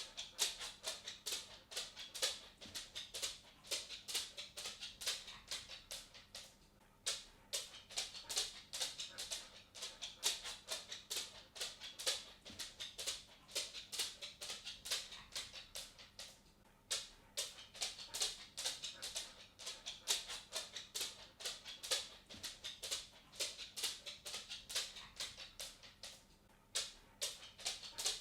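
A cat walking: a quick, irregular run of light clicks and taps, pausing briefly three times.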